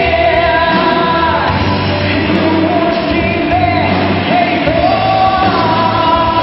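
Live rock band playing: a singer sings long held notes into a microphone over electric guitar and bass guitar.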